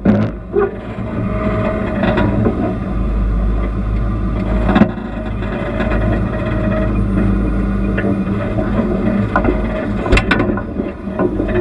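Off-road vehicle's engine running at low speed as it crawls over a rocky dirt trail, with a couple of sharp knocks about halfway through and near the end.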